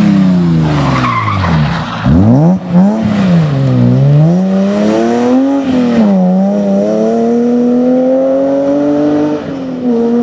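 BMW M3 rally car's straight-six engine at full effort through a bend: the revs fall away as it slows, pick up sharply about two seconds in and rise and fall with the throttle, then climb in one long steady pull, with a short dip from a gear change near the end.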